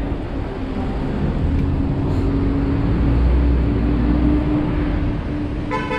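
A vehicle running: a steady low rumble with a steady hum over it, and a brief higher-pitched sound near the end.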